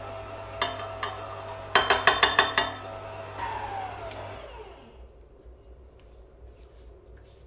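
Stand mixer motor running with a steady hum, and a quick run of about seven sharp taps about two seconds in. The motor is then switched off and spins down, its whine falling in pitch as it fades.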